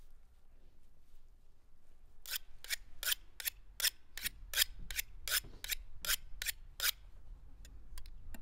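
Two steel kitchen knives being honed against each other: about a dozen quick, sharp scraping strokes, roughly three a second, starting about two seconds in and stopping near the end.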